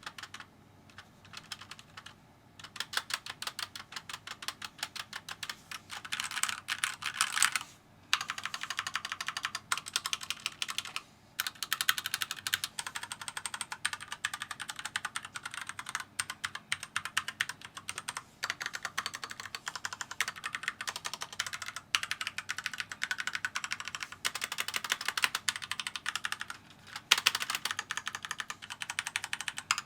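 Keychron K4 mechanical keyboard being typed on in a steady stream of rapid keystroke clacks, with a few brief pauses.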